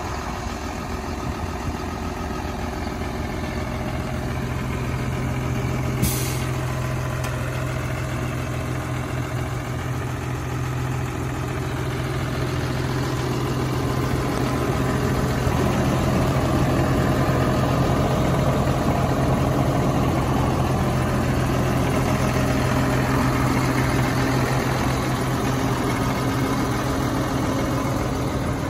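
New Holland T7.210 tractor's diesel engine idling steadily, with a single sharp click about six seconds in.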